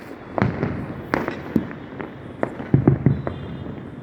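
Deepavali firecrackers and fireworks going off: a string of sharp, irregular bangs, about ten in four seconds, over a background of further crackling.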